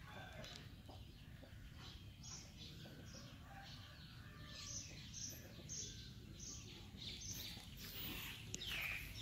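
Birds chirping in outdoor ambience: a run of short high chirps, about two a second, in the middle, and a louder call that sweeps down in pitch near the end.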